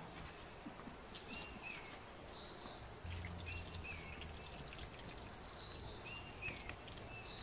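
Birds singing faintly: short, sharply inflected high chirps repeated in similar phrases every second or two. A faint steady low hum comes in about three seconds in.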